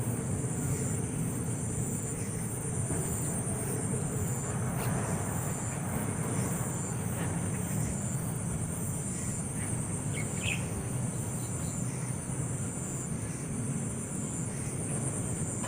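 Steady insect chorus: a high, continuous trill pulsing in an even rhythm over a low background rumble. A brief high chirp comes about ten seconds in.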